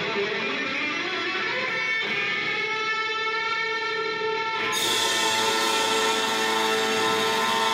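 Amplified contemporary chamber ensemble with electric guitar, winds, brass, strings and percussion playing a dense passage of sustained tones. About five seconds in, the sound brightens suddenly: a hissing wash joins and the held notes settle into a steady chord.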